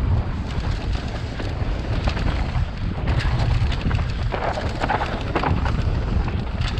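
Wind buffeting a helmet-mounted microphone on a mountain bike descending dirt singletrack, with the tyres rolling over dirt and rocks and the bike rattling and clicking over the bumps.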